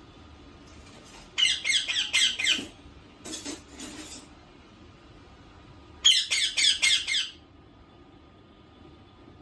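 Indian ringneck parakeet squawking in two quick runs of about five harsh, high calls each, a few seconds apart, with quieter scratchy sounds between them.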